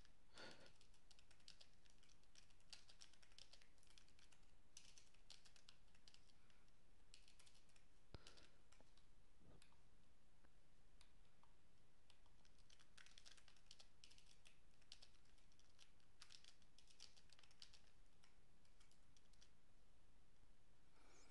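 Faint typing on a computer keyboard: short runs of quick keystroke clicks with pauses between them.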